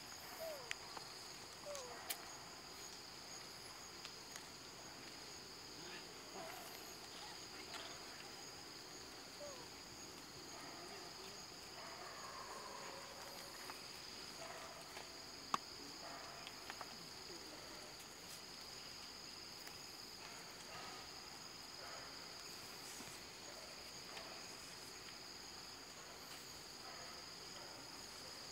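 A chorus of insects shrilling steadily on two high, even tones, with a few faint short calls and a couple of sharp clicks.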